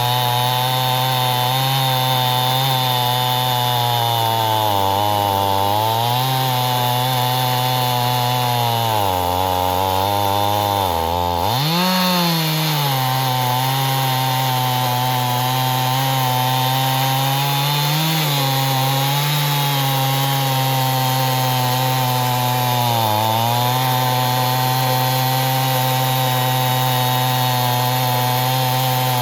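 Two-stroke chainsaw running at high revs under load, ripping lengthwise through a log in an Alaskan chainsaw mill. Its pitch sags several times as it bogs in the cut, dropping deepest about ten seconds in before revving back up.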